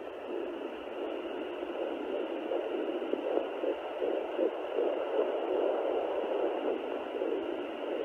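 Fetal heartbeat through a Sonoline B pocket fetal Doppler's speaker: a fast run of rhythmic whooshing pulses over a steady hiss.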